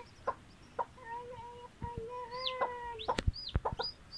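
Chickens: a few short clucks and one long, low, held call, then high, falling peeps from a newly hatched chick in the last couple of seconds. A sharp knock sounds about three seconds in.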